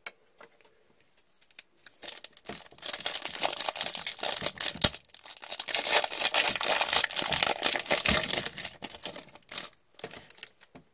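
Foil wrapper of an O-Pee-Chee Platinum hockey card pack crinkling and tearing as it is opened by hand. A dense crackle starts about two seconds in and runs for about seven seconds, with a brief lull midway.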